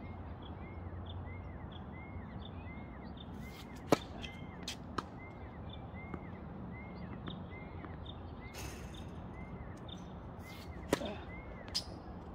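Tennis balls hit with rackets and bouncing on a hard court: one sharp crack about four seconds in, lighter knocks after it, and two more hits near the end. Behind them a bird repeats a short chirp a few times a second.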